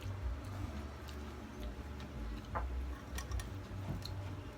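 Eating at close range: scattered small clicks and taps of chewing and handling food, over a steady low hum.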